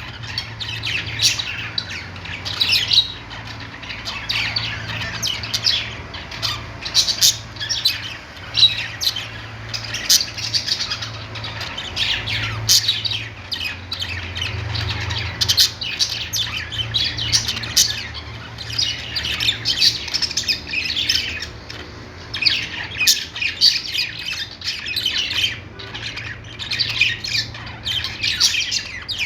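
A group of budgerigars chirping and squawking, many rapid, overlapping short calls in continuous chatter, over a faint low steady hum.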